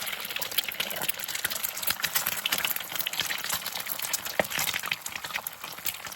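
Food frying in hot oil in a pan: a steady sizzle with dense, rapid crackling and popping.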